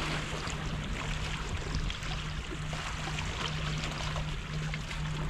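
Steady hiss of sea water washing against the rocks of a breakwater, with a low rumble underneath that breaks on and off.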